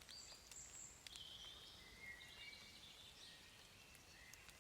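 Near silence with faint, distant birdsong: thin whistled notes held at several different pitches.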